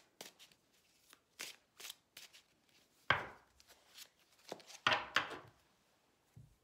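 A deck of tarot cards being shuffled by hand: a string of soft card flicks and rustles, with two louder rushes of shuffling about three and five seconds in.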